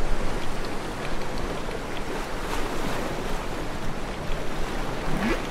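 Sea water rushing and breaking in a steady roar, with wind on the microphone.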